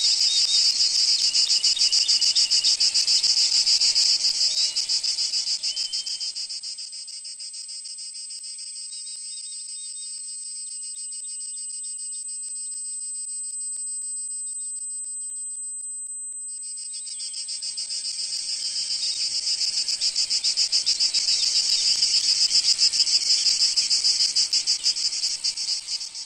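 Insects chirring in a dense, rapid, high-pitched pulsing chorus. It fades down about six seconds in, leaving a thin steady high tone, and swells back about seventeen seconds in.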